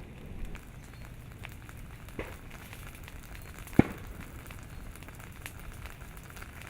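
Lava flow crackling and popping, with scattered sharp cracks and one loud crack just before the four-second mark, over steady low noise.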